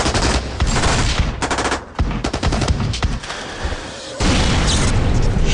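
Bursts of rapid automatic gunfire. About four seconds in, a loud steady rushing noise takes over.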